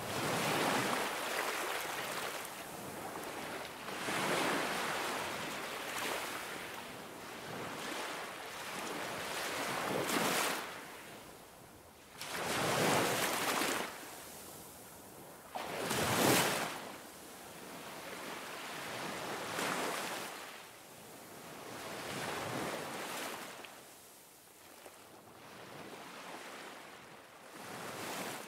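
Ocean surf: waves breaking and washing up a beach, swelling and fading every few seconds.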